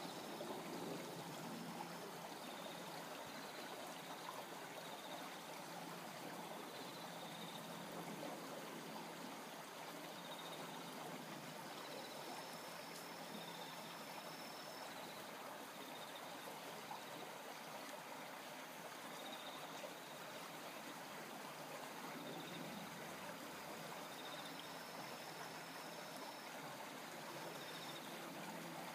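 Faint steady rushing of a flowing stream, with faint short high chirps now and then.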